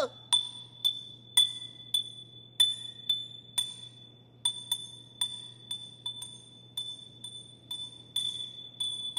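Small glass figurine clinking again and again as it tumbles down a long flight of stairs. About twenty sharp, ringing clinks come at an uneven pace, loudest at first and mostly fainter as it falls.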